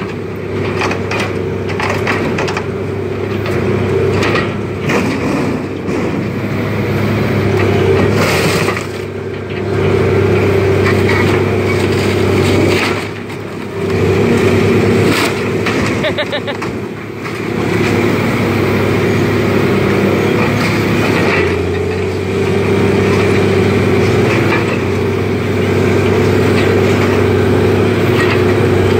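Heavy machine engine running steadily under load as a grapple handles scrap metal, with occasional clanks and crunches of metal. The engine note dips briefly twice in the middle.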